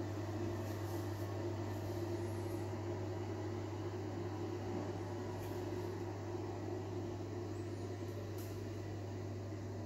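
Steady low electrical hum of a running fan, even in level, with no separate knocks or clicks.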